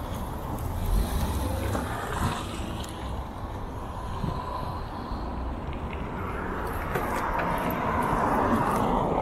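Passing car traffic at a street intersection: a car drives by close, its tyre and engine noise swelling in the last few seconds, over a steady low wind rumble on the microphone.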